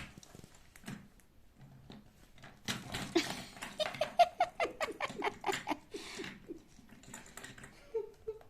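Lovebird chattering: a quick run of short chirps and clicks starting about three seconds in and lasting some three seconds, then a couple of short notes near the end.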